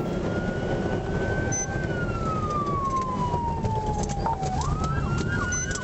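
Police car siren in a slow wail, rising and then falling, that switches to a fast yelp near the end, over steady road and engine noise.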